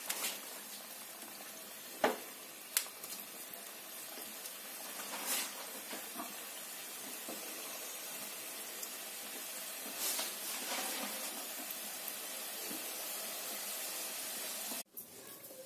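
Chakli deep-frying in hot oil in an iron kadai: a steady sizzle with a few sharp clicks, about two seconds in and again shortly after. The sizzle cuts off suddenly near the end.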